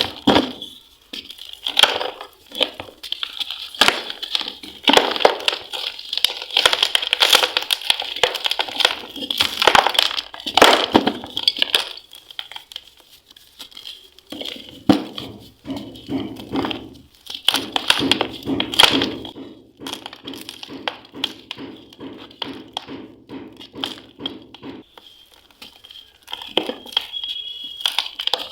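Dry cement crumbling and crunching in repeated bursts of crackles and gritty cracks, with a stretch of evenly spaced crunches in the middle.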